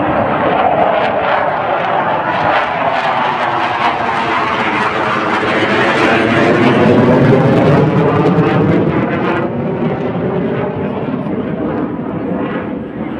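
Fighter jet flying overhead. Its engine noise sweeps and swells to its loudest a little past the middle, then fades as the jet moves away.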